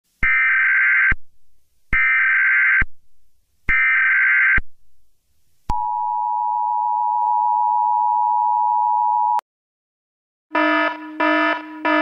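Emergency Alert System tones. First come three raspy digital data bursts of about a second each, the SAME header. Then the steady two-tone attention signal sounds for almost four seconds and cuts off sharply. After a pause, a few short pitched note stabs start near the end.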